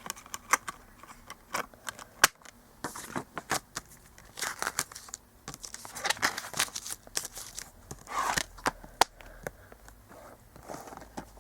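Metal steelbook case being handled, closed and set down: an irregular run of sharp clicks and taps mixed with short crinkling rustles, the loudest click about two seconds in.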